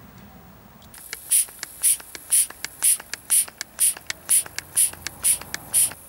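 Mityvac MV8500 hand vacuum pump being squeezed about ten times, about two strokes a second. Each stroke gives a short hiss of air, with small clicks between, as the pump draws vacuum on the brake fluid catch bottle before the bleed screw is opened.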